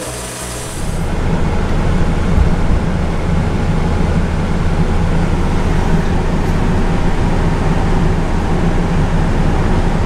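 Hyundai Grand Starex van's engine running steadily with the air conditioning on, a low rumble that gets louder about a second in. The drive belt is wet from water sprayed on the condenser, and the mechanic says it is making a lot of belt noise.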